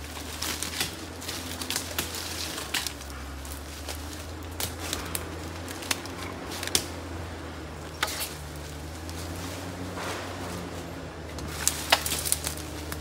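Footsteps crunching through dry leaf litter, with twigs snapping in irregular sharp clicks, over a steady low hum.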